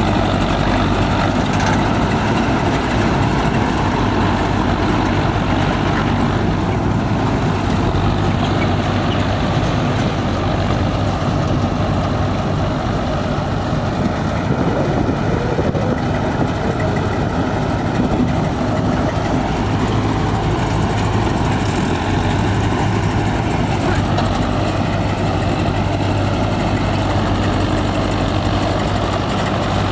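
Yanmar Arjun YH 700 combine harvester's engine running steadily, with a constant low hum and dense mechanical noise.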